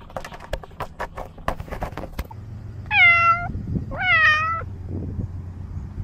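Domestic cat meowing twice, close and loud: two drawn-out meows about a second apart. Before them comes a run of quick clicks.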